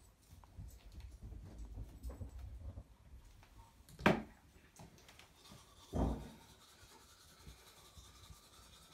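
Toothbrush scrubbing against teeth with a faint, steady scratching in the last couple of seconds, after two short bumps about four and six seconds in, the first the louder.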